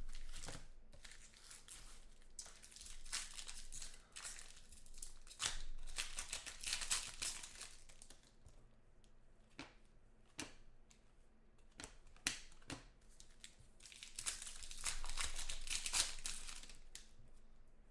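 Plastic and foil trading-card pack wrappers crinkling and tearing as football card packs are opened and handled. The crackling comes in irregular bursts and is loudest about six seconds in and again around fifteen seconds.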